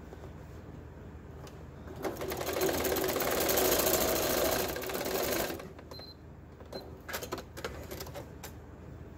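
Janome electric sewing machine stitching a short seam across a fabric corner. It starts about two seconds in, runs steadily at speed for about three and a half seconds, then stops. A few light clicks follow as the piece is handled.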